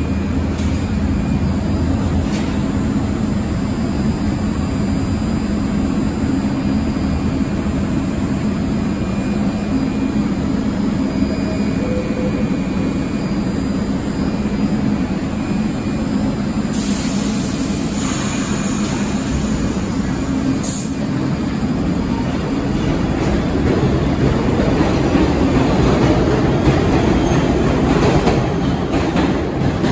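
New York City subway train standing at the station with a steady low rumble and hum. A sharp hiss starts about 17 seconds in and lasts a few seconds. Near the end a rumble builds as another train approaches on the near track.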